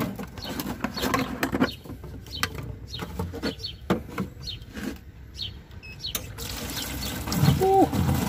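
Clatter and sharp knocks of plastic water flasks being handled, with birds chirping in the background.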